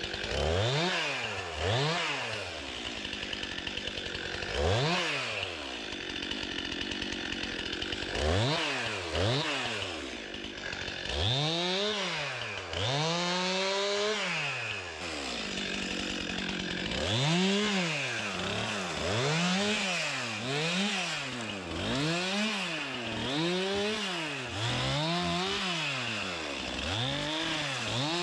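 Chainsaw limbing a felled white pine, revving up for each branch cut and dropping back to idle between cuts. The revs come in scattered bursts at first, then in a quick run of about one a second near the end.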